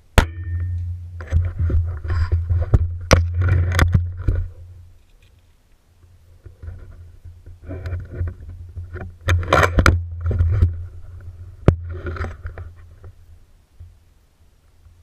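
Scraping, rubbing and knocking from a break-barrel air rifle being handled, heard through a camera mounted on its scope, in two bouts with many sharp clicks and a low rumble: the rifle being cocked and reloaded between shots. A sharp click right at the start.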